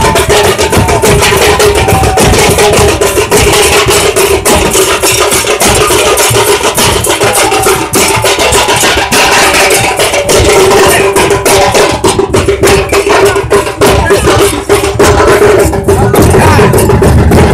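Several large rope-tensioned barrel drums (dhol) beaten hard and fast with sticks in a continuous, dense rhythm, very loud and close, with a steady tone held underneath.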